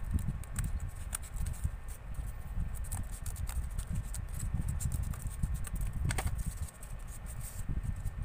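Cardboard being handled and cut with hand scissors: scattered crisp clicks and crunches over a steady low rumble.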